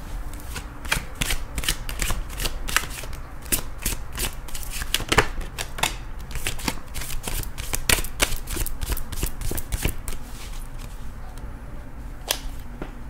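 Tarot cards being shuffled by hand: a rapid, irregular run of crisp card clicks and flicks, thinning out to a few in the last few seconds.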